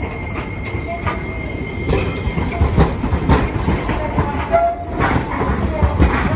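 Hiroshima Electric Railway 5100-series Green Mover Max low-floor tram pulling into the platform. From about two seconds in, its wheels knock and click over the rail joints and pointwork above a steady rumble.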